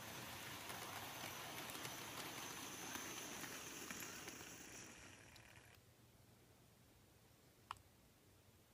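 Faint running noise of a Bachmann Midland 4F 0-6-0 model steam locomotive: electric motor whir with a thin high whine and wheels on the rails, growing as it comes close, then cutting off abruptly about six seconds in as it stops. A single sharp click follows near the end.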